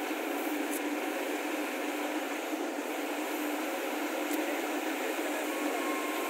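Steady running noise of construction-site machinery, an engine-driven drone with an even hiss over it, with two faint clicks.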